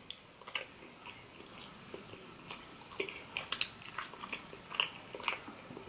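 Close-miked chewing of a soft, iced Cinnabon cinnamon roll: wet smacking and clicking mouth sounds, busier in the second half.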